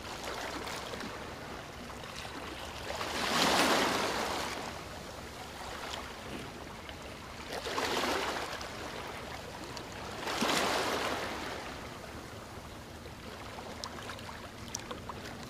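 Rushing, washing water noise, steady underneath, that swells up three times like waves and falls back.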